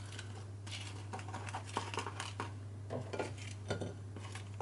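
Kitchen tongs clicking and tapping against plates as roast potatoes are picked up from a serving dish and set down on a dinner plate: a scattered series of light clicks and clinks, over a steady low hum.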